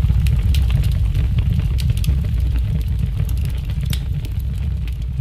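A deep low rumble with scattered sharp clicks, gradually fading out: the closing tail of the soundtrack song.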